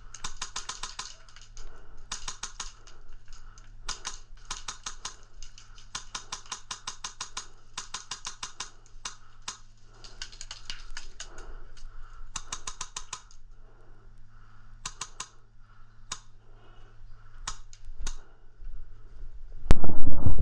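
Airsoft guns firing in rapid bursts of sharp clicking shots, about a dozen a second, with single shots between the bursts. A sudden much louder noise comes near the end.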